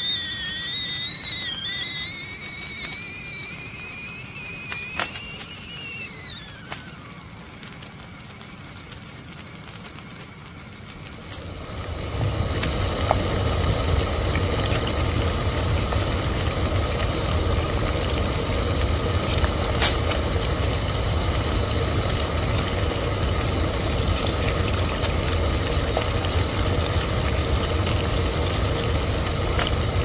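Tea kettle whistling with a wavering, slowly rising pitch; about six seconds in the whistle slides down in pitch and dies away. After a few quieter seconds, a loud steady low rumbling roar sets in about eleven seconds in and holds.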